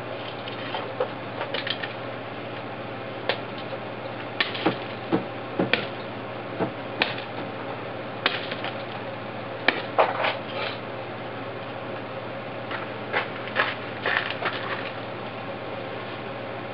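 Claw hammer prying at an 11.1 V 3S lithium-polymer battery pack lying on gravel: irregular metal clicks, knocks and scrapes, coming in clusters.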